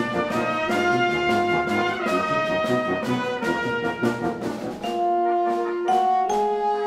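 Instrumental background music: held notes that change pitch every second or so.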